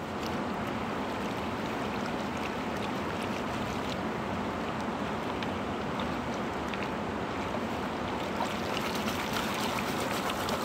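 Steady rush of the fast-flowing Yuba River, running high. Near the end come small clicks and splashes of a gold pan being worked in the shallows.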